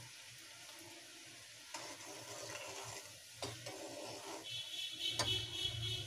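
Steel ladle stirring sugar syrup simmering in an aluminium kadhai, the syrup softly bubbling and hissing. The ladle clinks against the pan three times, the last clink the loudest, near the end.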